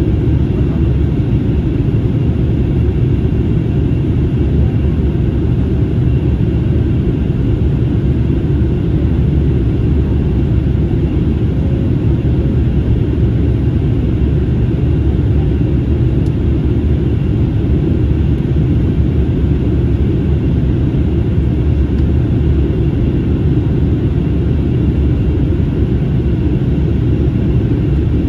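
Steady low rumble of airflow and engines heard inside the cabin of an Airbus A321neo on its approach to land, with its Pratt & Whitney PW1100G geared turbofans running. The noise holds even throughout, with no bumps or changes.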